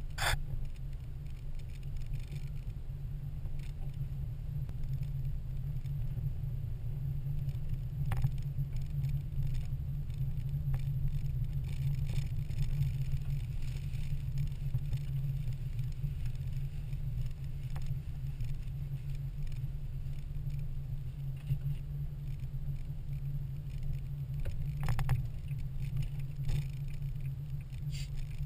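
Steady low engine and road rumble heard inside a car's cabin while driving slowly, with a few scattered sharp ticks.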